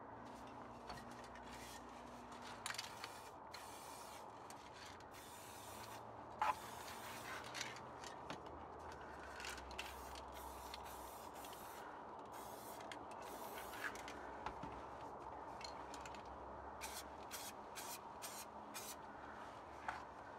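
Aerosol spray paint can hissing in a series of bursts of varying length with short gaps, ending in several quick short sprays, as white and light blue paint is laid on. A sharp click, the loudest sound, comes about six seconds in.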